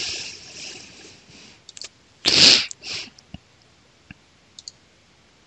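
A hissing breath into the microphone, then a short, loud burst of breath noise about two seconds in with a smaller one just after, and a few faint mouse clicks.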